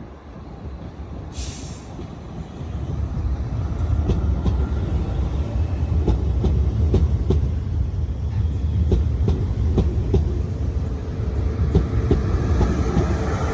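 A train running through on the main line, its low rumble swelling a couple of seconds in as it arrives and holding. Wheels click repeatedly over the rail joints, and a brief high hiss sounds a little over a second in.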